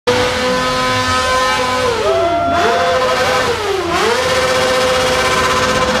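A sport motorcycle engine is held at high revs with its rear wheel spinning in a swimming pool, under a steady hiss of water spray. The revs dip briefly and pick back up twice, about two and four seconds in.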